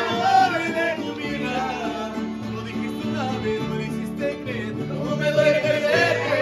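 Mariachi band playing: violins over strummed guitars with a steady bass line, with some singing.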